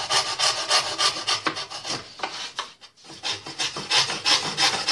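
Coping saw cutting out an f-hole in a fiddle's wooden top plate, with the teeth set to cut on the downstroke: quick short sawing strokes, about four a second, with a brief pause about three seconds in.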